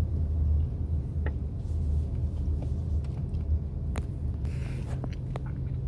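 Steady low rumble of a vehicle running, heard from inside the cabin, with a few light clicks.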